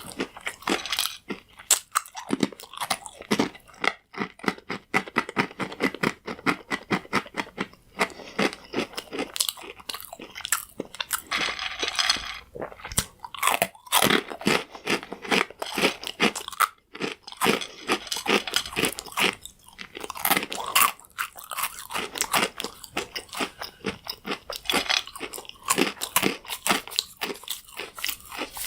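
Close-up chewing of crunchy croutons: a fast, continuous stream of sharp crunches and crackles as the dry bread breaks between the teeth.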